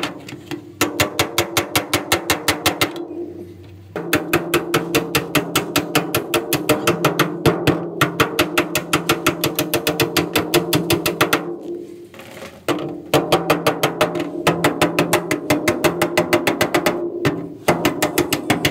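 Hammer tapping quickly on the sheet-steel roof pillar of an accident-damaged Suzuki Mehran, about ten light blows a second, to straighten the bent metal. The blows come in runs of several seconds with short pauses, and the steel rings under them.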